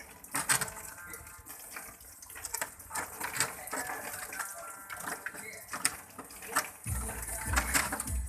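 Water running and splashing, with scattered knocks and clinks throughout. Music with a heavy beat comes in near the end.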